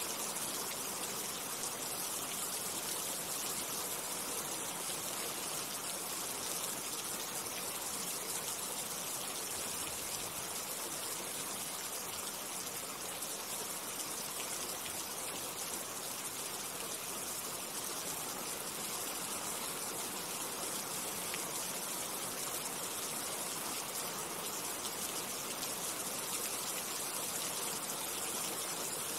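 Steady rain falling, an even hiss with no pauses or changes.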